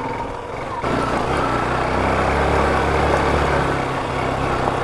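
Yamaha FZ motorcycle engine running. It picks up sharply about a second in, then runs steadily and louder.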